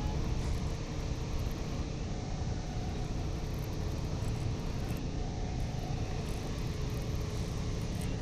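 Steady low rumble with a hiss over it, even throughout, with a faint steady hum underneath.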